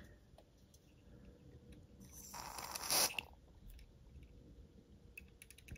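Mostly quiet handling of a small model part: a soft hiss of about a second, about two seconds in, and a few faint clicks near the end.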